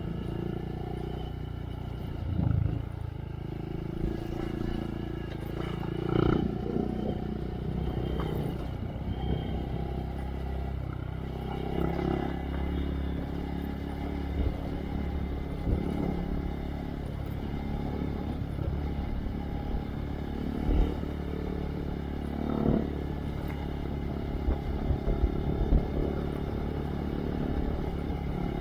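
Honda Monkey's single-cylinder engine through a Yoshimura RS3 exhaust, running steadily under way, with occasional knocks and rattles.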